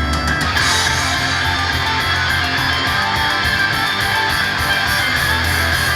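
Instrumental intro of a guitar-heavy rock song with strummed electric guitars and a steady beat, played loud through a live house's PA; the full band with bass comes in about half a second in, before any singing.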